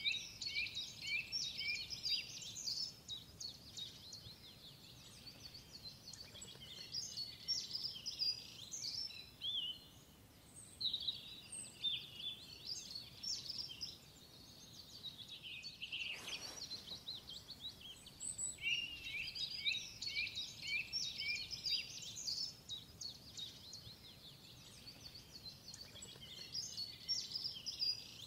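Many small birds chirping and twittering over one another in bouts, with short lulls between them.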